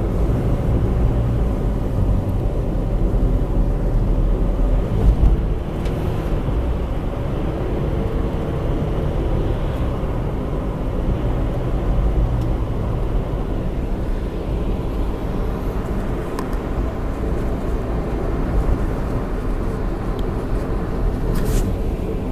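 Steady road and engine noise of a moving car, heard from inside the cabin as a low, even rumble.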